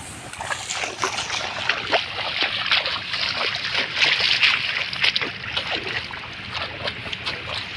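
Water splashing and sloshing in a flooded paddy field, many short irregular splashes, busiest midway.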